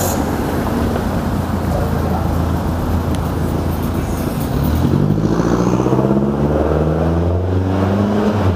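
City street traffic: cars and a truck running past close by, with a low engine rumble throughout and one vehicle's engine note growing louder about five seconds in.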